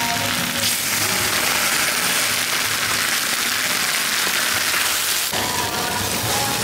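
Sauce hitting a hot cast-iron serving pot of stir-fried water spinach and squid, sizzling loudly. About five seconds in, the sizzle changes abruptly to a somewhat lighter hiss.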